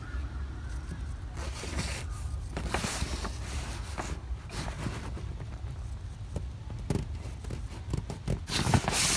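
Rustling and scraping of a fabric canoe flotation bag and a D-ring patch being handled and slid over the hull, in short bursts with a few ticks, loudest near the end, over a steady low rumble.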